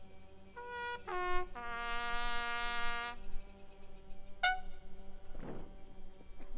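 Military bugle call: two short notes, a long held lower note, then one brief clipped note.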